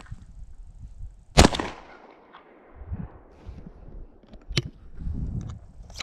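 A Rossi single-barrel 12-gauge shotgun fires once, about a second and a half in: a sharp report with a short echo trailing off. Fainter clicks and knocks follow.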